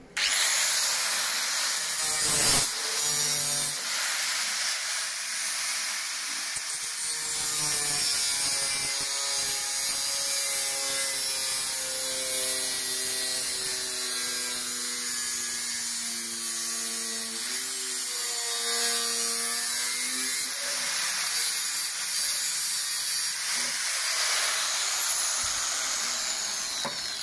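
Electric angle grinder grinding away rusted, ragged steel along a Ford Transit's sill edge, with a steady harsh grinding hiss. The motor's whine dips in pitch as the disc is pressed into the metal and picks back up when it is eased off, with a short break about two and a half seconds in.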